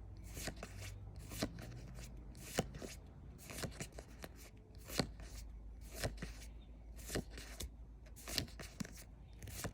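Pokémon trading cards being handled and slid one past another, a series of short swishes and light taps coming roughly every half-second to second.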